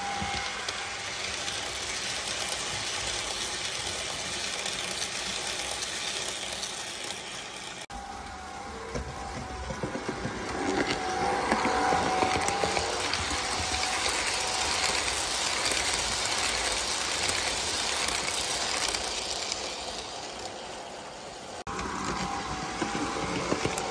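Model railway trains running on the layout's track: a steady whirring of the locomotive motor and a rattling of wheels on the rails, with short clicks. The sound changes abruptly about eight seconds in and again near the end.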